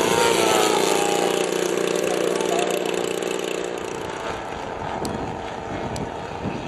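Engine of a large radio-controlled model warplane running steadily as it flies close past, its pitch wavering; after about four seconds it gives way to a fainter, rougher drone of model aircraft further off.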